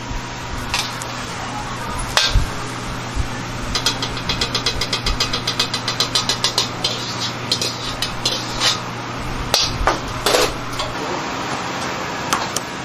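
Metal ladle knocking and scraping against a wok while fried rice is served out onto a plate, with a fast run of light taps in the middle and several sharp clanks, over a steady low hum that stops near the end.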